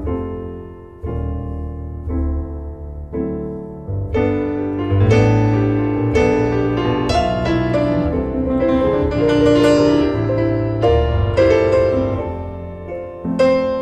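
Background piano music: single notes about once a second at first, then fuller, louder chords from about four seconds in.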